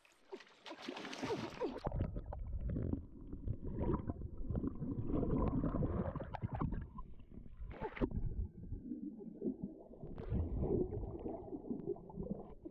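Splashing at the surface for about the first two seconds, then the muffled bubbling, gurgling and rumbling of water heard with the microphone underwater as a diver moves about.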